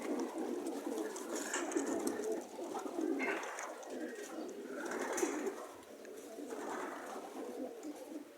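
Racing pigeons cooing steadily in a loft, with a few higher sounds and faint clicks over the top.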